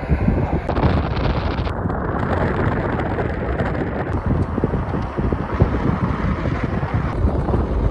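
Wind buffeting the microphone: a steady rushing rumble, heaviest in the lows, whose character changes abruptly a few times.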